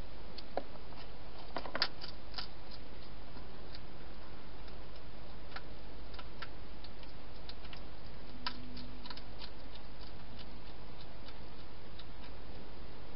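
Wild hedgehog eating from a dish inside a plastic feeding station: irregular sharp clicks of chewing, bunched about two seconds in and again near the middle, over a steady background hiss.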